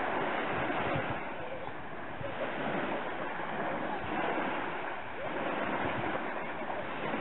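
Small waves breaking and washing up onto a sandy beach: a steady surf hiss that swells and eases every few seconds.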